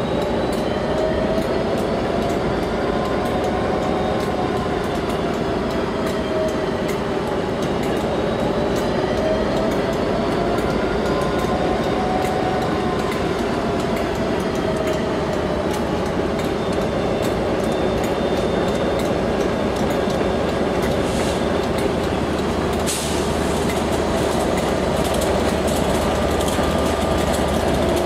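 Class 67 diesel-electric locomotive running slowly into the station at the head of a train of Mk3 coaches: a steady rumble of engine and wheels, with a wavering tone that rises and falls every few seconds.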